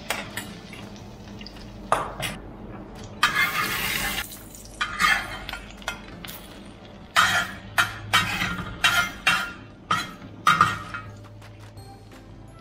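Steel spatula and fork scraping and clinking against a steel bowl and an iron tawa in about a dozen short, irregular strokes. Under them is a faint sizzle of an egg-white-coated lentil kabab frying in butter.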